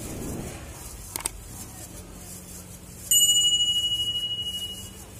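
Subscribe-button animation sound effect: a single mouse-click tick, then a bright bell ding that rings on with a wavering fade for nearly two seconds.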